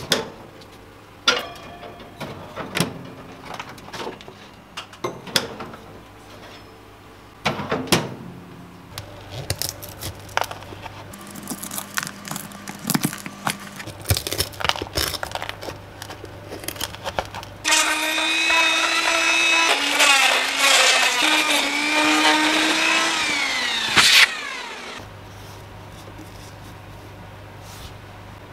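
Workshop handling sounds, scattered knocks and clicks, over a faint steady hum; then a small electric motor runs loudly for about six seconds and winds down, its pitch falling as it stops.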